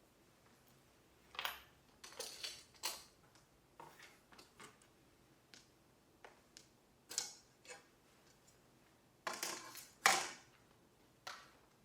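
Scattered light taps and clinks of small household items being handled and set down, irregular and a few seconds apart, with a louder cluster about nine to ten seconds in.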